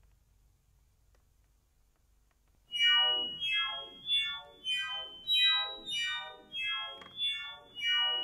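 Near silence for nearly three seconds, then electronic tape music from loudspeakers: a quick run of pitched sounds, each sliding downward in pitch for about half a second, about two a second.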